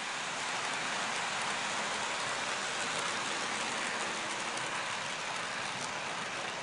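H0m-scale model train running over its track: a steady rushing hiss of wheels rolling on rail, easing off slightly near the end.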